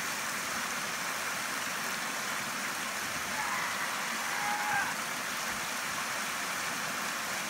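Creek water spilling over a low rock ledge in a small waterfall: a steady rushing hiss.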